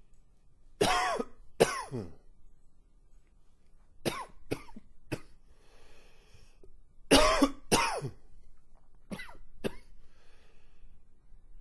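A man's wheezy coughing fit: about nine harsh coughs in clusters of two or three, with faint drawn breaths between the clusters.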